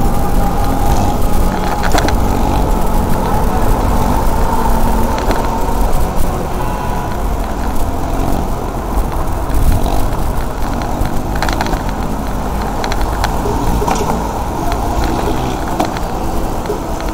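Wind buffeting the microphone of a bike-mounted camera during a bicycle ride, with rolling road rumble. A few sharp rattles or knocks come from bumps along the way.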